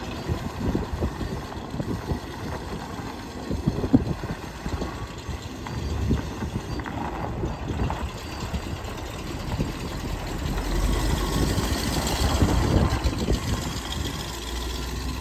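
Engine of a 1969 GMC 6500 grain truck running as the truck drives slowly, louder for a few seconds near the end as it passes close by.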